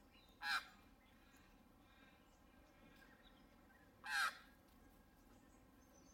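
Two short, harsh, caw-like bird calls, about three and a half seconds apart.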